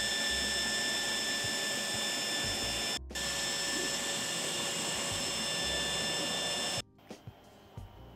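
3D printer running a print: its cooling fans give a steady whir with several high, steady whines, and the motors move underneath. The sound drops out briefly about three seconds in, then cuts off abruptly about seven seconds in, leaving only a few faint ticks.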